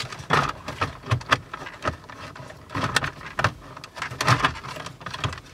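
Plastic centre-console trim panel being pushed and wiggled into its opening in the dash: a run of irregular clicks, knocks and scrapes of hard plastic as its rear tabs fail to seat.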